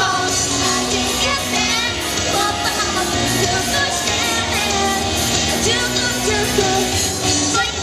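Live pop-rock song: female vocals sung into a microphone over electric guitar and a steady beat, played through a PA.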